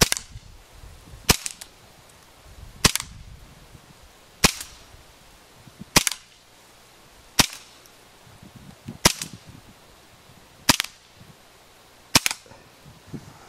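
WE TT-33 Tokarev gas blowback airsoft pistol, gassed with propane, fired in slow single shots: nine sharp cracks, about one every second and a half.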